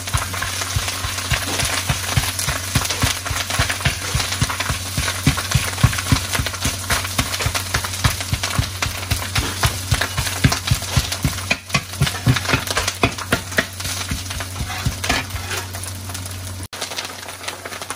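Metal ladle scraping and knocking against a large iron wok in quick repeated strokes as rice is stirred and pressed flat, with hot oil sizzling underneath; the rice is being fried into a crisp crust (guoba). A steady low hum runs underneath and stops abruptly near the end.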